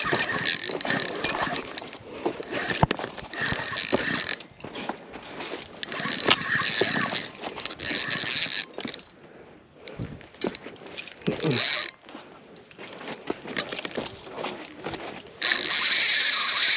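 Spinning fishing reel being cranked in spells, its gears and bail giving a rattly, clicking whir, with short pauses. Near the end a louder steady buzzing starts suddenly, the drag of another rod's reel as a fish takes line.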